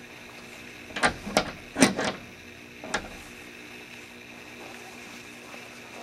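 A handful of sharp clinks and knocks in the first three seconds, the loudest about two seconds in, as a horse is bridled in its stall: the bridle's metal fittings and the horse shifting against the stall. A steady low hum sits underneath.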